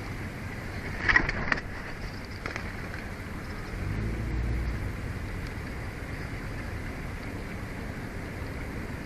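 Wind rushing over an outdoor nest-cam microphone, a steady noise with a low swell about four seconds in. A brief cluster of sharp clicks sounds about a second in.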